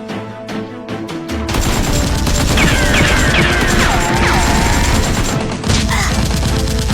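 Background action music, then about a second and a half in a dense burst of rapid, continuous gunfire, with a brief break near the end before the firing resumes.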